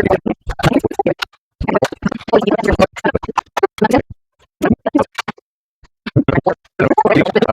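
Electronic background music, chopped into short bursts with sudden dead gaps between them.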